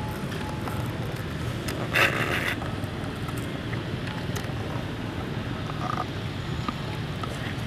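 Steady low rumble of wind noise on the microphone, with one brief sharp noise about two seconds in.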